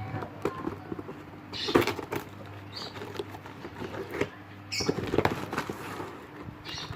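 A cardboard shipping box being worked open by hand: a run of scratching, scraping and clicking, with a few louder scrapes or rips.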